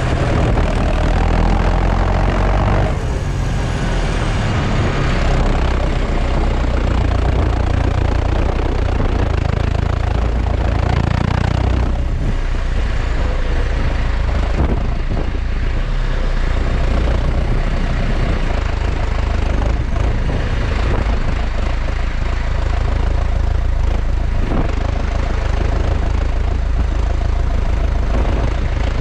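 New Holland T5050 tractor's four-cylinder diesel engine running steadily while driving, heard close to its exhaust stack. The engine note drops about three seconds in and swells briefly around eleven seconds.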